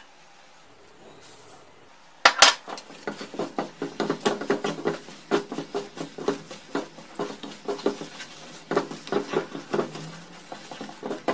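Wooden spatula stirring and scraping a moist semolina-and-ghee mixture in a nonstick pan, with quick, irregular scrapes and knocks against the pan. Two sharp knocks come about two seconds in, and the stirring runs on after them.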